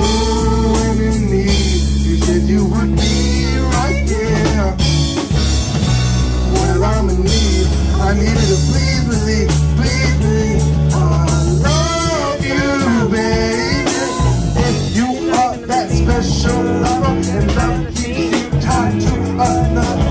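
A live band plays a cover song on drum kit, electric guitar, bass guitar and keyboard, with a bending, wavering melodic line on top. The heavy low end thins out about twelve seconds in.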